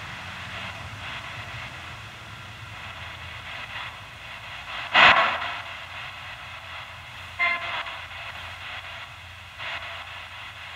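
Spirit box sweeping through radio frequencies, played through a speaker ('ghost portal'): a steady hiss of static broken by a loud burst of sound about halfway through and two shorter, tone-laden snatches later. A low rumble of motorway traffic runs underneath.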